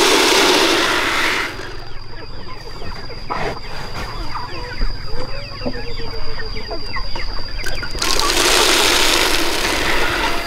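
Dry feed pellets poured from a plastic scoop into a plastic tube chicken feeder, a rushing rattle over the first second and a half and again about eight seconds in. Chickens cluck in between, over a steady high whine.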